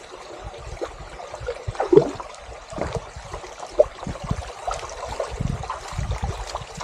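Water trickling steadily, with scattered short knocks and low thumps over it.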